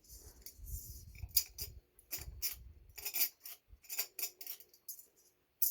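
A ceiling fan's metal pull chain clinking and rattling, with a dozen or so irregular sharp clicks as the fan is switched to high speed.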